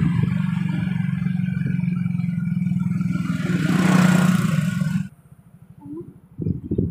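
A vehicle's engine running with a steady hum while travelling along a road. It cuts off abruptly about five seconds in, and near the end low, irregular gusts of wind buffet the microphone.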